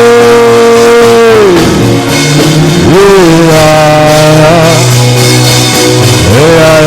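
Worship band playing with drums and bass under a lead line that slides up into long held notes, twice.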